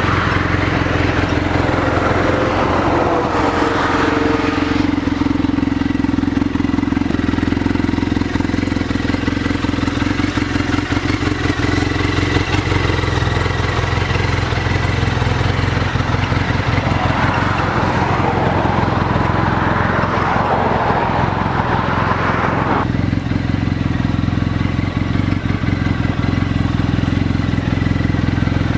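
Engine of a 2015 Arctic Cat Trail XT running steadily, a continuous low hum.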